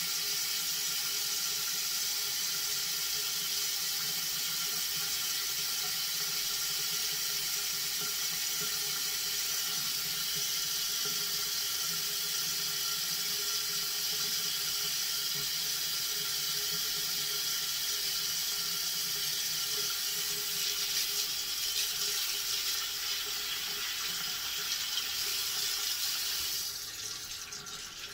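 Water running steadily from a tap into a bathroom sink, an even hiss that drops off sharply near the end, followed by a few clicks.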